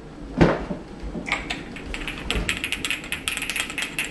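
A single thump, then a rapid run of small, sharp, hard clicks and clatter, like plastic toy pieces being handled.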